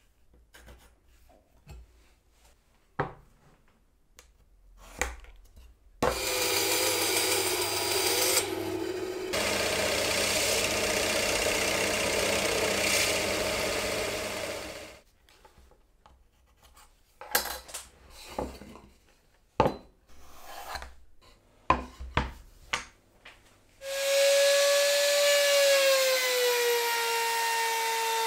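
Drill press boring into plywood with a wide bit, running steadily for about nine seconds, between scattered knocks and taps of wood being handled on the bench. Near the end another power tool starts up, its whine dipping in pitch as it runs.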